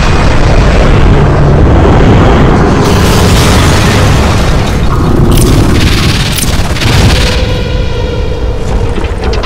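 Battle sound effects from an animation: a continuous heavy rumble of explosions, with sharp blasts about three and five to six and a half seconds in, and a buzzing tone near the end.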